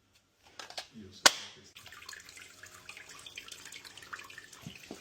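Water spattering and dripping, as from an opened plumbing fitting, with a sharp knock about a second in.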